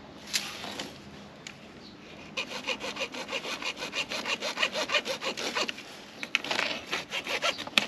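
Hand saw cutting through a water pipe with quick, regular back-and-forth strokes. They start about two and a half seconds in, pause briefly a little past the middle, then resume.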